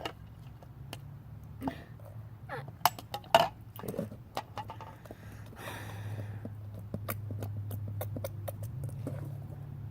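Fresh borax slime being kneaded by hand, giving irregular sticky clicks and wet pops, the loudest a little over three seconds in, over a steady low hum.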